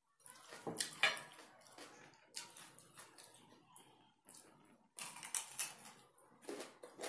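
Close-up eating sounds: crisp crunching and small clicks of a fork and a glass sauce bowl, then a bite into a raw red radish slice with crunchy chewing about twice a second near the end.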